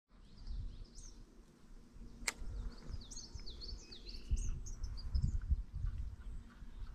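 Small birds chirping in a run of short, falling chirps over uneven low rumbling noise on the microphone, with one sharp click about two seconds in.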